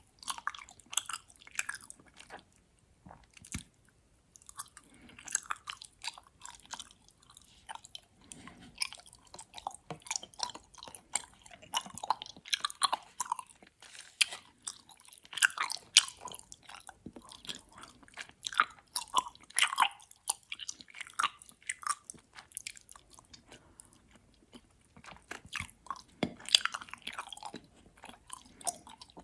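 Close-miked chewing of gummy worms: wet, sticky mouth sounds and smacks of soft gummy candy being bitten and chewed, irregular and continuous, with a brief pause about three seconds in.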